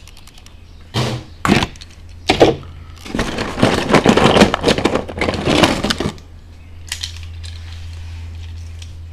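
Small metal die-cast toy cars clicking and clattering against each other as they are handled and rummaged through in a box. There are a few separate knocks, then a few seconds of dense rattling, over a steady low hum.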